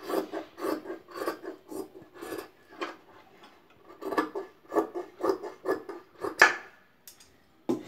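Large steel tailor's shears snipping through a double layer of fabric: a run of short crunching snips, about three a second, with a brief pause a little past three seconds in and the loudest snip near the end.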